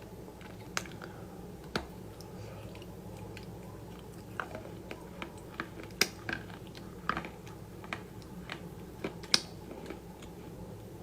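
A person biting and chewing crunchy food close to the microphone: irregular crisp crunches and clicks, the sharpest about six and nine seconds in.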